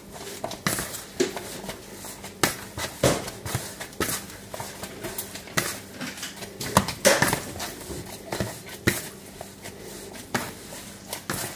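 Gloved hands kneading homemade flour, salt and oil play dough in a plastic bowl: irregular soft thuds, roughly one or two a second.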